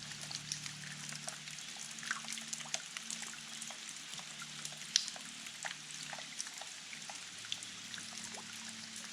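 Water trickling and pouring, with many small, irregular drips and splashes and one sharper plink about five seconds in.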